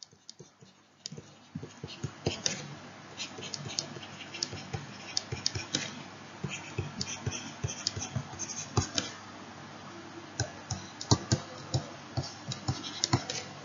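Stylus tapping and scratching on a tablet screen while handwriting figures: irregular small clicks, some in quick clusters, over a faint steady hiss.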